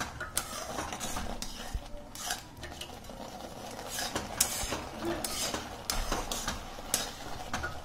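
Metal spatula scraping and clicking against a metal pan as crumbly chhana is stirred, in irregular strokes. The chhana is being cooked down until nearly dry.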